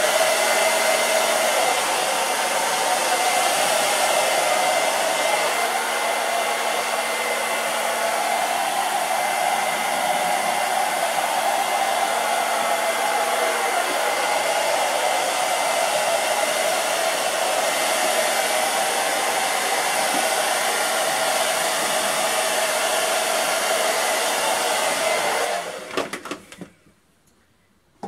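Hand-held blow dryer running steadily, a rush of air with a faint steady whine, spreading wet acrylic paint across a canvas; it is switched off near the end.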